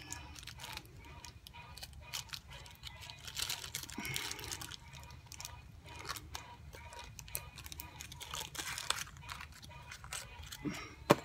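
Packaging being handled: rustling and crinkling with many small clicks and taps as a small vape mod kit is worked with in its box, and one sharper click near the end.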